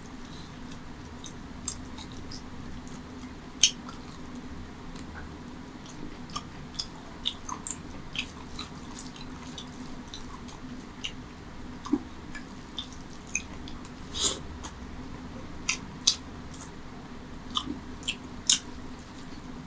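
Close-miked eating sounds: fingers squishing and mixing rice with mutton curry gravy, and wet chewing, heard as irregular sharp clicks and smacks over a steady low hum.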